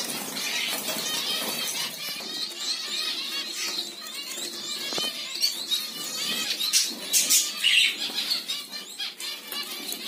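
Many small caged finches, Bengalese (society) finches and zebra finches, chirping and twittering at once in a dense, overlapping chatter, with birds fluttering their wings as they flit about the cage.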